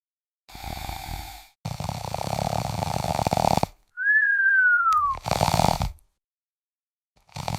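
A person snoring: a short snort, then a long rattling snore, then a whistle that falls in pitch on the breath out about four seconds in, followed by more snores. It is the sound of relaxed throat muscles partly blocking the airway.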